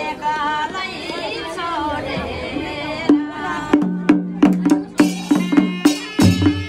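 Voices singing and talking for about the first three seconds. Then a small kettledrum and a barrel drum start, beaten with wooden sticks at about four strokes a second, each stroke ringing at a clear low pitch.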